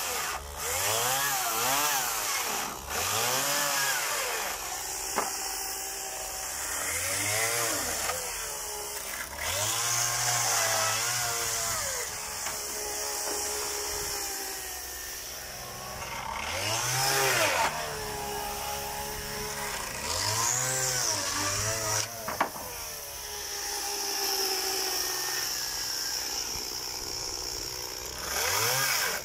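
Petrol chainsaw cutting the boards of wooden pallet crates. Its engine revs up and drops back again and again as it goes into and out of each cut.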